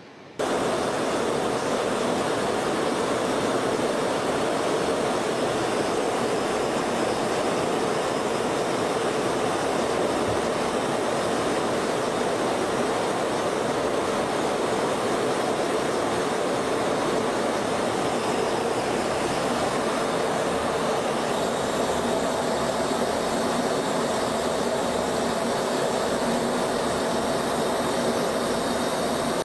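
Steady, loud roar of jet aircraft in flight, even and unbroken, starting abruptly about half a second in.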